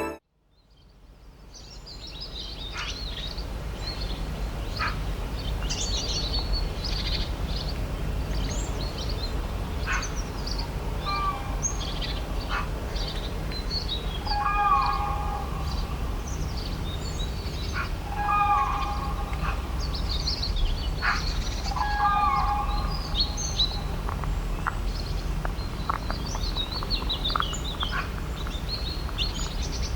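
Dawn-chorus-style bird ambience fading in from silence over the first few seconds: many small birds chirping in quick high notes over a steady low rumble. A lower, stronger call repeats about every four seconds through the middle.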